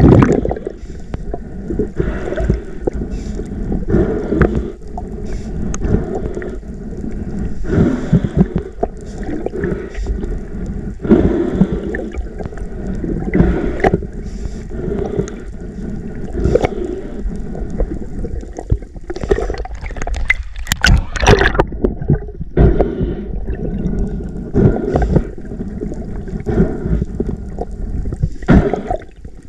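Underwater water noise on a freediver's camera: rushing and gurgling in uneven surges every second or two as he works the speargun line. A cluster of sharper clicks comes a little after twenty seconds.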